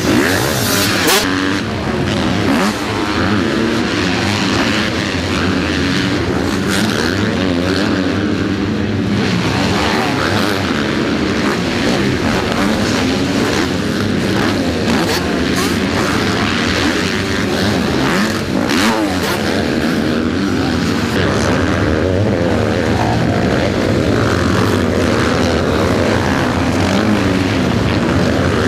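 Several motocross bike engines revving together as a pack races by, their pitch rising and falling continually as riders open and close the throttle.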